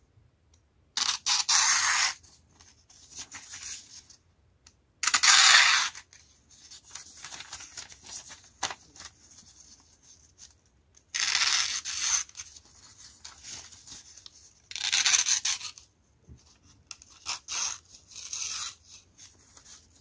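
Freshly sharpened D2 steel balisong blade slicing through a sheet of printed paper: four long slicing hisses of about a second each, then a few shorter, quieter cuts near the end. It is a sharpness test, and the knife cuts cleanly: working and not dull.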